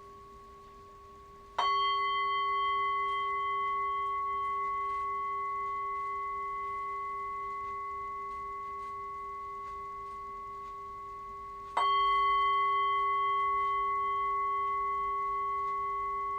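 Singing bowl struck twice, about ten seconds apart. Each strike rings on in several clear overlapping tones, a low hum beneath higher ringing tones, fading slowly. The tail of an earlier strike is still ringing before the first.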